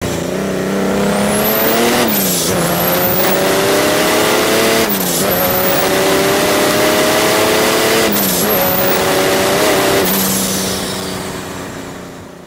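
Mercedes OM606 straight-six turbo-diesel in a BMW E28 accelerating hard through the gears: the engine note climbs and drops back at three upshifts about two, five and eight seconds in, with a high turbo whistle rising in each gear. Near the end the sound fades out.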